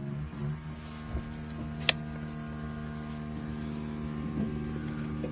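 Electric fuel pump running with a steady hum as it pressurises the fuel line, with the ignition on and the engine not cranking. A single sharp click about two seconds in.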